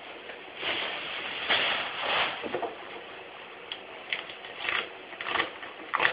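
Hands handling a new speaker cabinet: a run of irregular rustling and scraping noises, turning to short crackles near the end as the label is peeled off its metal mesh grille.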